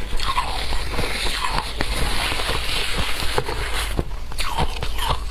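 Shaved ice being bitten and chewed, a dense run of sharp crunches and crackles.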